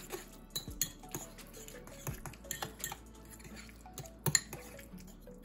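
Metal fork whipping deviled ham spread and mayonnaise in a ceramic ramekin, its tines clinking and scraping against the bowl in quick, irregular taps. One louder clink comes about four seconds in.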